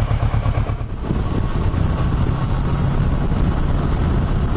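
Kawasaki Versys 650 parallel-twin engine idling with an even low pulse, then, from about a second in, running steadily as the motorcycle rides along.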